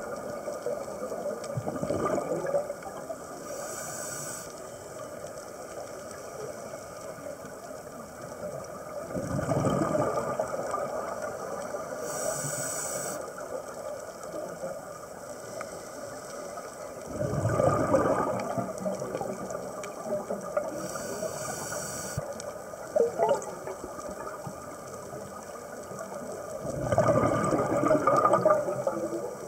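Scuba diver breathing through a regulator underwater: four slow exhalations about eight seconds apart, each a rush of exhaust bubbles, with a short hiss of air being drawn in between them.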